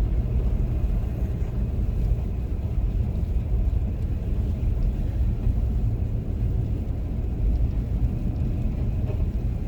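Steady low rumble of a car's engine and tyres on a snow-covered highway, heard from inside the cabin.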